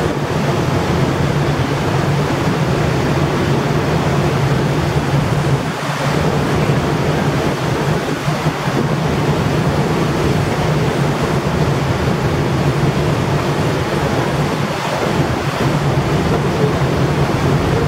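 Steady rush of wind and choppy sea water over the microphone, with a continuous low drone under it.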